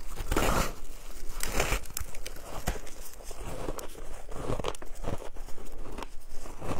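Close-miked crunching of coloured shaved ice being bitten and chewed: two loud crunching bites in the first two seconds, then a steady run of smaller crunches as the ice is chewed.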